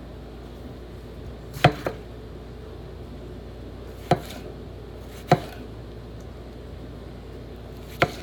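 Knife chopping vegetables on a cutting board. There are four separate sharp chops, a second or more apart, and the first is followed quickly by a second one.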